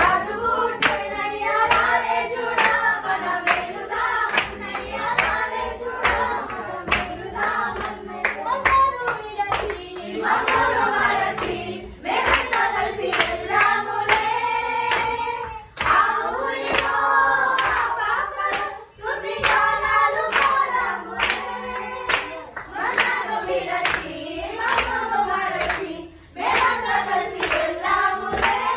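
A group of young voices singing a Telugu folk Christmas carol together, with rhythmic hand clapping keeping the beat.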